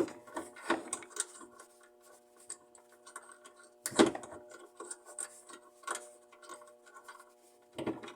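Handling sounds of fitting a washing-machine motor into its mount: irregular clicks, knocks and scraping as the motor and its bolt are lined up, with one louder knock about halfway, over a faint steady hum.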